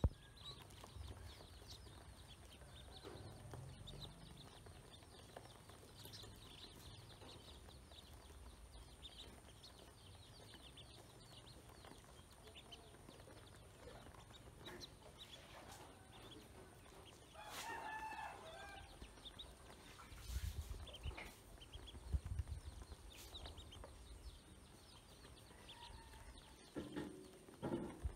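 Ducklings peeping, many short high calls overlapping, as they feed on grain in a plastic basin. A few low thumps, the loudest sounds, come about two-thirds of the way through and again near the end.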